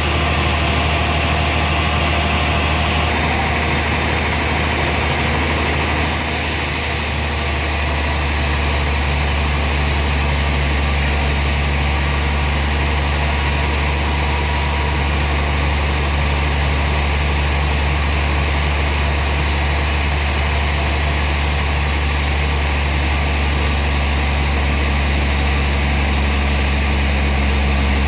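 Sawmill machinery running steadily with a low, even hum and a constant hiss; the hiss turns brighter about six seconds in.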